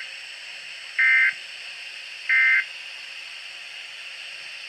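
Weather radio SAME data tones: two short, identical buzzy bursts of digital code about a second apart, with the tail of a first burst at the very start. The bursts are short enough to be the end-of-message code that closes the bulletin just read. A steady radio hiss runs underneath.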